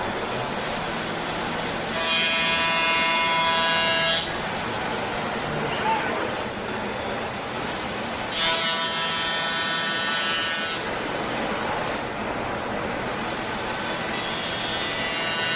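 Robot-held power grinder grinding down a weld bead: a steady motor noise that rises three times into louder, whining grinding spells of about two seconds, the last starting near the end.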